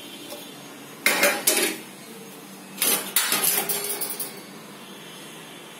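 Steel plates and utensils clattering as they are handled and set down: two clanks about a second in, then a longer run of clinks and clanks around three to four seconds in.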